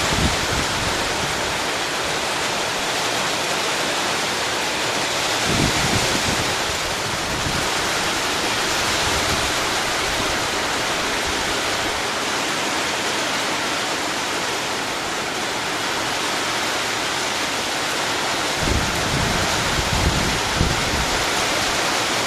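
Heavy rain falling, a loud steady hiss. Brief low rumbles come through about six seconds in and several times near the end.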